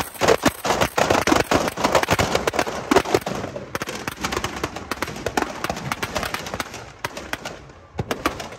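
Firecrackers going off in rapid succession: a dense run of crackling pops for about the first three seconds, thinning to scattered bangs after that.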